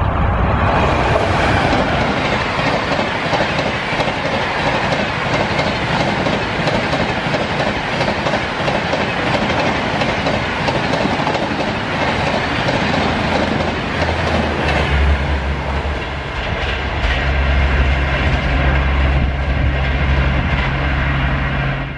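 Humsafar Express of LHB coaches, hauled by an electric locomotive, passing close at speed: a steady rush of steel wheels on rail with a rapid clickety-clack over the rail joints. A low steady hum joins in about two-thirds of the way through.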